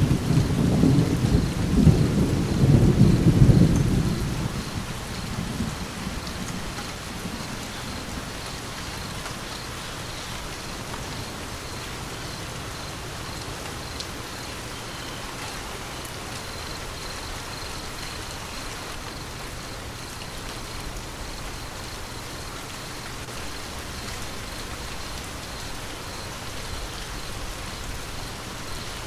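Steady rain with a low thunder rumble at the start that dies away over the first few seconds, leaving the even hiss of rain.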